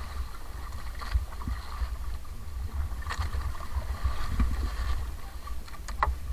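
Wind rumbling on the microphone and sea water lapping around a small outrigger boat, with a few short splashes and knocks as a large squid is hauled out of the water and dropped into the hull, the sharpest knock near the end.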